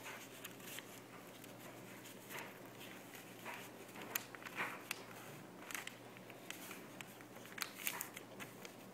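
A sheet of paper rustling and being creased as it is folded into a paper airplane: scattered short crinkles and soft taps.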